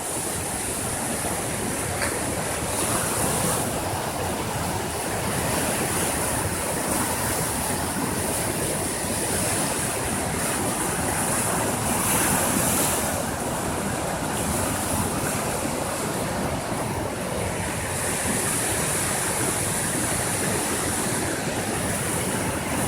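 Steady rushing of the Birs river in flood, its water swollen by days of heavy rain.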